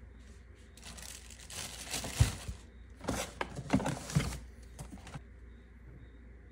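Plastic bag and paper packaging crinkling and rustling as hands rummage inside a cardboard shipping box, with a few sharp clicks among the rustling. It starts about a second in and stops about five seconds in.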